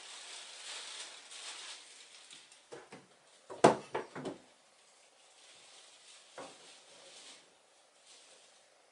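Paper rustling and sliding on a wooden workbench, then a quick series of sharp knocks from about three and a half seconds in as thin wooden template boards and the plan are moved and set down on the bench, with one more knock after six seconds.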